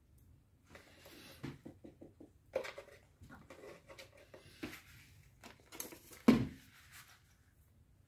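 African grey parrot's claws and beak on a stone windowsill: small clicks, taps and scratchy rustles, with a quick run of about five taps near the start and one sharp knock about six seconds in.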